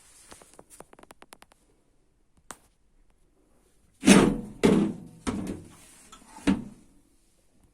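A quick run of light clicks, then four loud knocks spaced about half a second to a second apart, each with a short ring.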